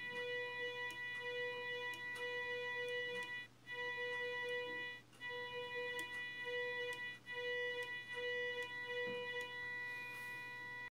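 Voice coil actuator's coil whining, a steady high-pitched tone with overtones from its H-bridge PWM drive. The tone swells and fades about once a second and cuts out briefly about three times, with a few faint clicks.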